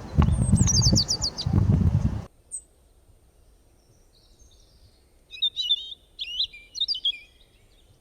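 Small birds chirping: a quick run of high, falling chirps over a loud low rumble, cut off abruptly after about two seconds, then a few more high chirps and warbles near the end. These are not the deep caws of a crow.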